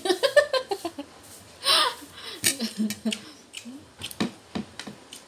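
A woman laughing heartily in quick bursts at the start, then a short breathy burst. A few murmured words and light clinks of a spoon on a plate follow.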